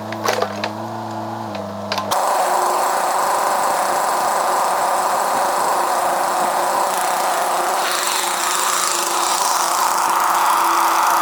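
A small engine running steadily with a few clicks. About two seconds in it cuts abruptly to a louder, steady machine noise.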